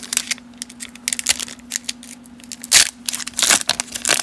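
Crinkly baseball-card pack wrapper being torn open by hand. It makes a run of sharp crackles, with louder rips about three seconds in and at the end.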